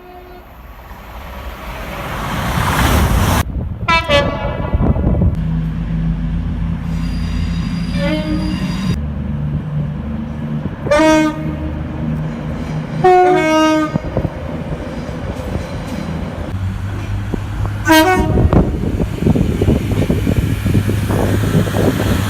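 Train approaching and sounding its horn in about five blasts, some about a second long and others short, over a steady low engine drone. Rail and wheel noise swells near the end as it comes past.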